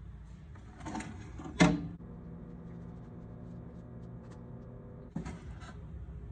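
Kitchen handling sounds: a sharp knock, like a dish or utensil set down, about one and a half seconds in, followed by a faint steady hum and another short clatter near the end.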